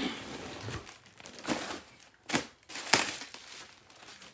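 Plastic packaging crinkling and rustling as it is handled, with three short, sharper crackles, the loudest about three seconds in.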